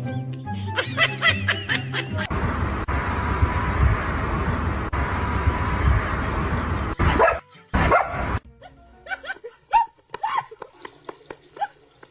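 Background music with a bass line, then several seconds of noise, two loud bursts, and a dog giving a run of short barks in the last few seconds.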